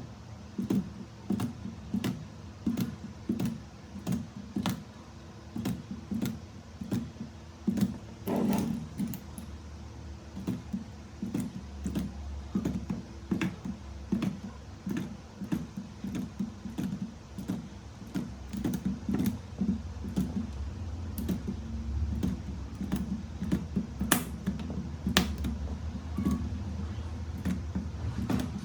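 Irregular short, sharp clicks and light knocks, about two a second, from hard parts being handled during 18650 battery-pack assembly, over a steady low hum.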